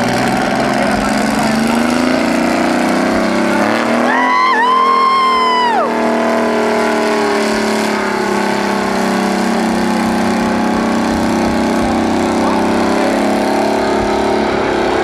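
Massey Ferguson 98's Detroit Diesel 3-71 two-stroke diesel engine running steadily, its pitch creeping up over the first few seconds. About four seconds in, a loud high whistling tone sounds for about two seconds and drops in pitch as it ends.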